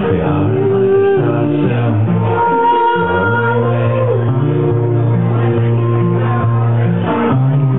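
Folk-rock band playing live: a man singing held, gliding notes over strummed acoustic guitar, with electric guitar and keyboard.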